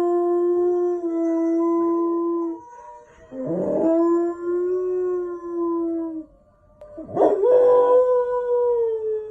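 Dog howling: three long, steady howls, each starting roughly, the third higher in pitch and falling away at its end.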